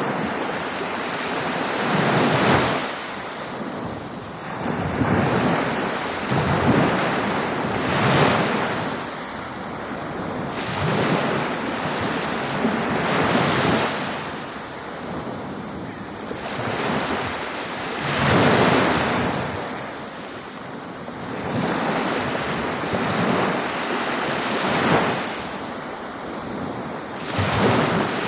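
Ocean surf: waves washing in and breaking, the rush of water swelling and fading every few seconds.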